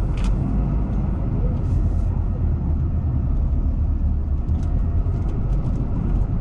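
Intercity bus heard from inside the passenger cabin as it moves slowly: a steady low engine and road rumble, with a few faint ticks and rattles.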